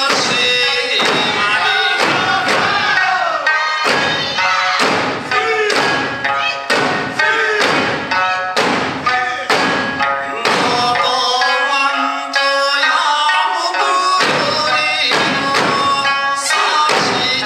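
Okinawan eisa drumming: large barrel drums (ōdaiko) and small paranku hand drums struck together in a steady beat, over sanshin and singing. The heavy drum strokes drop out for a couple of seconds past the middle, leaving the melody, then come back in.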